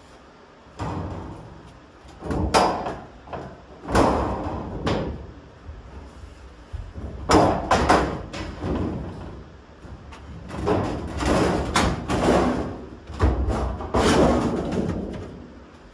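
Sheet-metal panel being pushed and worked into place in a car's trunk-to-cabin opening: a long series of bangs and knocks of metal against the body, some with a short metallic ring.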